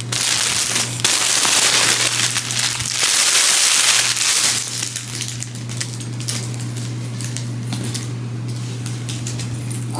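Clear plastic packaging bag crinkling and crackling as it is handled and crumpled, loudest in the first few seconds, then lighter scattered crackles. A steady low hum sits underneath.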